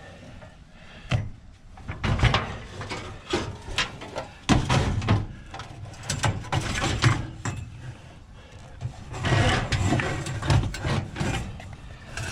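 A heavy scrap item being manoeuvred into a vehicle's cargo area: repeated knocks, bumps and scrapes as it is pushed and stood up, with a quieter pause in the middle before another stretch of scraping and knocking.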